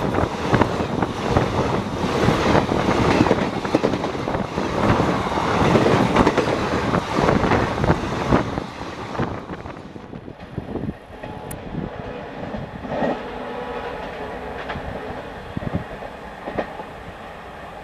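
Teesta-Torsa Express passenger coaches rushing past at close range, the wheels clattering over the rail joints in quick clicks with a heavy rush of air. About nine seconds in the noise falls away abruptly to a fainter, steady rumble as the train pulls away.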